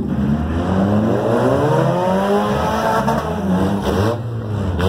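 Several demolition derby cars' engines running and revving, their pitch climbing and falling as the cars accelerate and back off.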